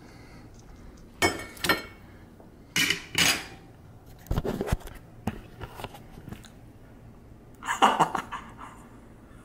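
Kitchen handling sounds from the air fryer's metal basket and a plate: a few sudden clatters and knocks, with low knocks about four seconds in and small clicks after. Near the end there is a short, loud burst of laughter, the loudest sound.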